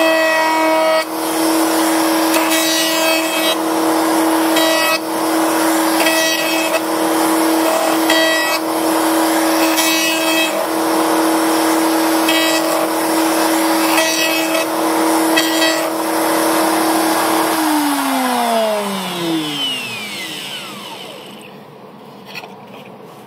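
Table-mounted router with a round-over bit running at a steady high whine while cutting a profile on the edge of a spalted maple box, the cutting noise swelling every second or two. About three-quarters of the way in the router is switched off and its whine falls steadily in pitch as the bit spins down to a stop.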